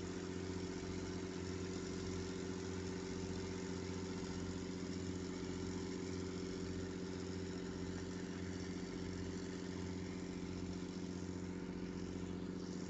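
An engine running steadily at idle, an even low hum that holds the same pitch and level throughout.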